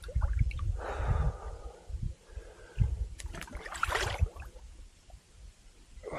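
A swimmer splashing in sea water right at the microphone, with hard breaths as he ducks under and comes back up, over a low rumble of water against the mic. The splashing comes in two loud spells, about a second in and again around three to four seconds.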